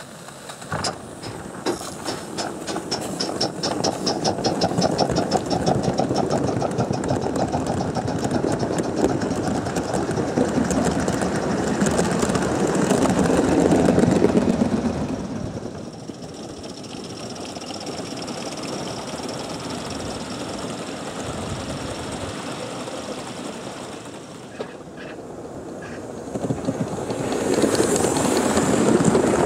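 Gauge 1 live-steam model of a BR Britannia locomotive pulling away, its exhaust chuffs quickening over the first few seconds, then the running rumble of the train on the track. The rumble is loudest about halfway, fades as it runs off, and rises again near the end as a second model locomotive draws close.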